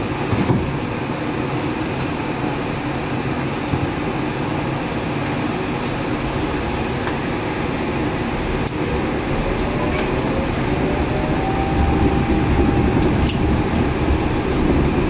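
Inside a Yurikamome 7300 series rubber-tyred automated train: steady running and ventilation noise. A faint rising motor whine comes about halfway through as the train pulls away from a station, and the running noise grows louder near the end as it gathers speed.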